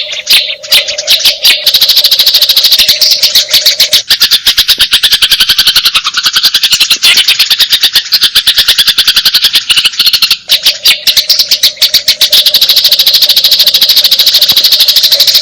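Songbird masteran recording: a rapid, continuous chatter of short, sharp, high chirps with no pause, with a steady low tone underneath during the first four seconds and again from about ten and a half seconds.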